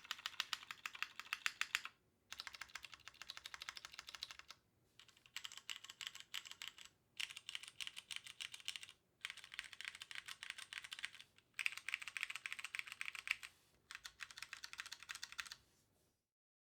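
Custom mechanical keyboard typed on quickly: a Weaston GSKT-00 with stock Cherry MX Hyperglide Brown tactile switches on a polycarbonate plate, with DCS-profile keycaps and lubed Cherry stabilisers. The keystrokes come in about seven runs of two seconds each with brief pauses between them, and stop near the end.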